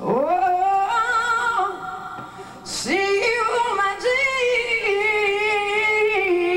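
A woman singing long held notes into a microphone: the first phrase slides up into a held note, and after a quick breath about three seconds in a second long note is sustained with a wavering vibrato.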